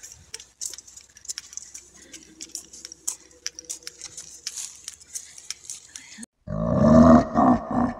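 Scattered light clicks and rustles, then, after a brief cut-out about six seconds in, a loud, low-pitched, drawn-out voice-like sound.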